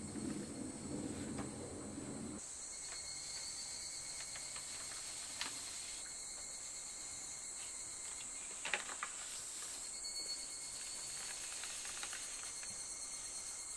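Steady high-pitched chirring of insects, with a low noise that stops about two seconds in and a few light taps.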